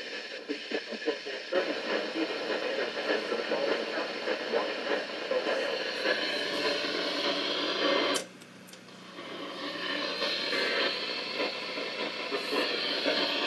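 Radio Shack NOAA weather radio receiver playing the National Weather Service broadcast of an areal flood warning on a weak signal: a voice half buried in hissing static. The signal drops away for about a second near the middle, then comes back.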